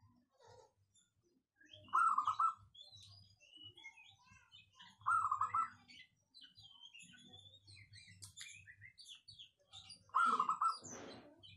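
Zebra dove cooing three times, a few seconds apart; each coo is a short run of rapid pulsed notes. Faint high chirps of small birds sound between the coos.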